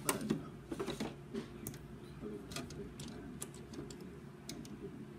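Irregular light clicks and taps of small makeup containers and tools being picked up and set down while searching for a product, over a faint steady low hum.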